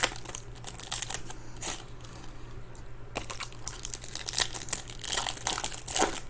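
Stiff glossy trading cards being handled: quick rustling, clicking and crinkling, with a quieter stretch of about a second in the middle.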